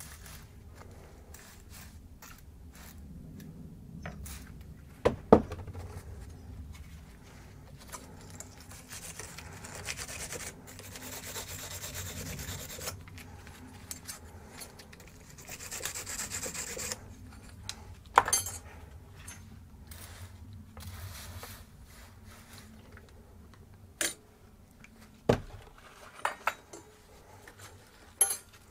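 A small wire brush scrubbing a steel brake-pad hardware clip clamped in a bench vise: the metal bristles rasp against the metal in stretches of a few seconds. A few sharp knocks and clicks of tools on the vise and bench are mixed in.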